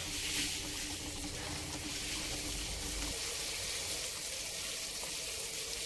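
Sweet soy sauce with meatballs simmering in a wok, a steady bubbling hiss as the liquid cooks down and thickens.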